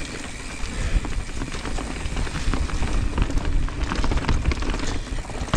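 Mountain bike rolling fast over a dirt trail covered in dry leaves: tyres crackling through the leaves, with frequent small clicks and knocks from the bike over bumps and a low wind rumble on the helmet microphone.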